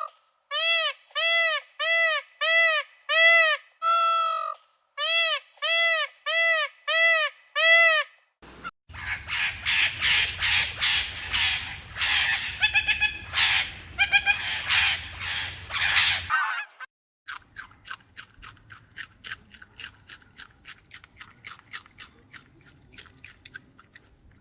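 Bird calls: two runs of short, clear, arching calls, about two a second. Then comes a loud stretch of many overlapping calls, and near the end faint rapid ticking.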